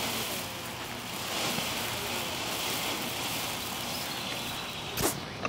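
Small ground fountain firework hissing steadily as it sprays sparks, with a single sharp crack near the end.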